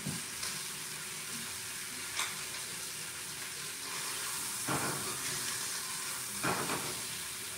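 Food frying in a pan on a gas stove, a steady sizzling hiss, with three short knocks or scrapes of a utensil in the pan about two, four and a half and six and a half seconds in.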